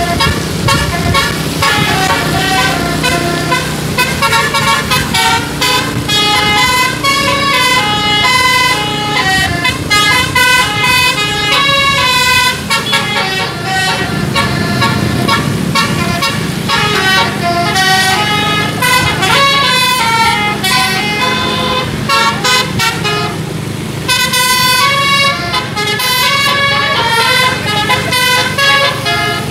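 Bus 'telolet' musical air horn playing a long run of quick melodic notes that change pitch several times a second. There is one brief break about four-fifths of the way through.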